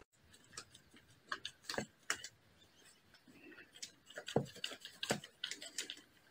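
Faint, irregular taps and clicks, about a dozen scattered through, from a cat poking and pawing at a stack of books and papers on a desk.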